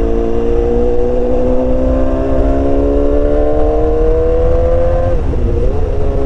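BMW S1000XR inline-four engine with a full exhaust system, growling under way, its pitch climbing slowly as the bike gains speed. About five seconds in the note breaks off briefly, then carries on at a steady, somewhat lower pitch, over a constant low rush of wind and road noise.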